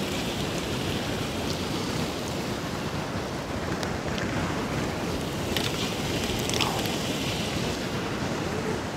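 Steady wind noise rumbling on the microphone, with a few faint ticks.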